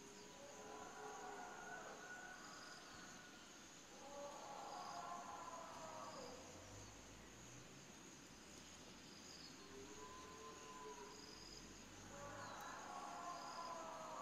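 Faint dusk ambience of crickets and other insects trilling steadily, with short high chirps. Four drawn-out distant animal calls waver and fall in pitch, and a low rumble comes in around the middle.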